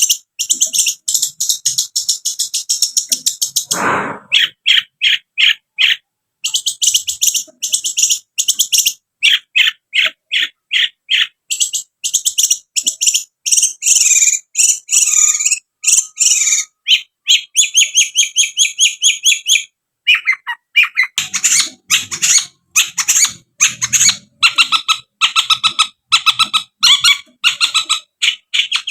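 Long-tailed shrike (cendet) singing: loud, fast runs of high repeated chattering notes broken by short pauses. A dull thump about four seconds in.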